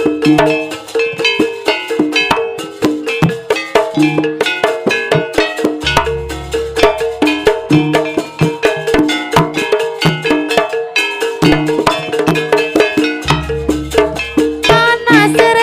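Jaranan ensemble playing an instrumental passage: fast, ringing metallic gong-chime strokes over drums, with a deep gong about six seconds in and again about thirteen seconds in.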